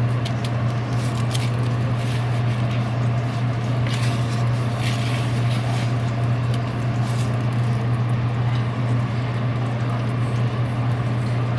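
Coated tilapia fillets frying in hot oil: a steady sizzle with scattered pops and crackles, over a steady low hum.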